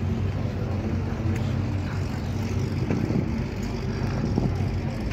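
Car engines idling in a line of waiting cars, a steady low rumble.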